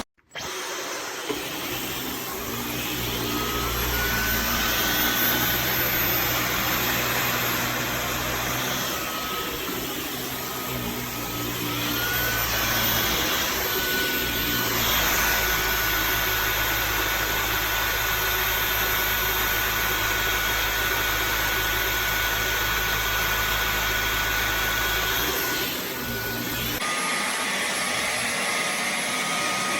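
Dyson V15 Detect cordless stick vacuum running: a steady motor whine that steps up in pitch a few seconds in and again about halfway through, with a change in tone near the end.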